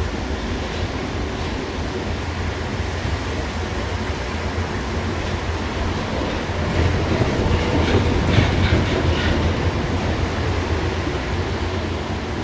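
Interior of a Paris Métro MP 73 rubber-tyred metro car in motion: a steady low running rumble, with a louder stretch of quick rattling clicks about seven to nine seconds in.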